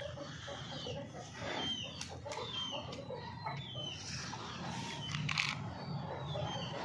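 Chickens calling: a run of short, high chirps falling in pitch, about two a second, with a few sharp clicks and a steady low hum underneath.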